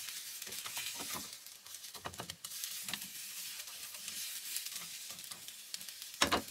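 Beaten egg sizzling in a rectangular tamagoyaki pan over a gas flame as it sets. Chopsticks stir through the egg, with a few sharp taps against the pan, the clearest near the end.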